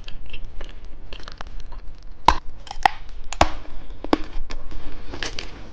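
Irregular sharp clicks and crackles from a lollipop and its plastic packaging being handled, with a few louder snaps in the middle.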